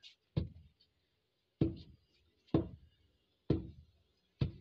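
Long wooden pestle pounding rice in a wooden mortar, grinding it into flour: five dull thuds about a second apart.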